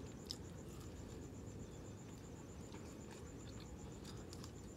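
Faint eating sounds: a few soft clicks and mouth noises from tearing and chewing a salmon croquette, over a steady low room hum and a thin, high-pitched pulsing whine.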